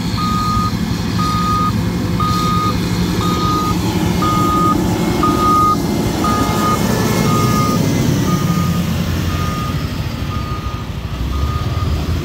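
Reversing alarm of a heavy road-works vehicle beeping steadily about once a second, each beep about half a second long, over the rumble of an engine that grows a little louder near the end.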